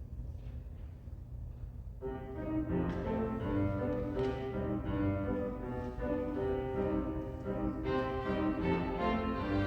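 Low room hum for about two seconds, then a group of violins begins playing sustained bowed notes together, the sound growing fuller about eight seconds in.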